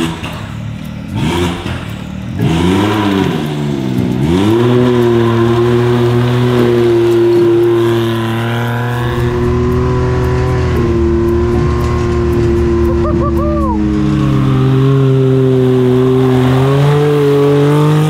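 Can-Am Maverick X3 Turbo side-by-side on snow tracks, its turbocharged three-cylinder engine revving up and down a few times, then pulling at steady high revs through deep snow, easing slightly partway and climbing again near the end.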